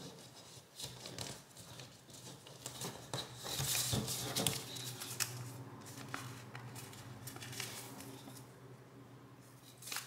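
A sheet of origami paper being folded and creased by hand: short papery rustles and crinkles, louder a few seconds in, with a few light clicks.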